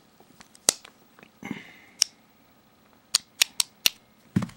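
Sharp metal clicks from a Case hobo knife set as its stainless fork, spoon and blade pieces are worked apart and snapped against each other. Single clicks come about a second apart, then a quick run of four clicks, followed by a duller knock near the end.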